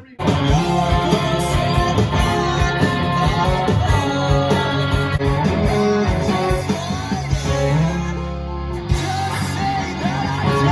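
Rock song with electric guitar, bass, a steady beat and a singing voice, cutting in abruptly just after the start.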